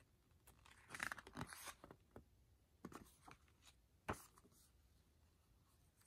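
Paper pages of a thin booklet being flipped by hand, a short rustle of pages about a second in, then light paper handling with a few soft clicks and a single sharp tap just after four seconds.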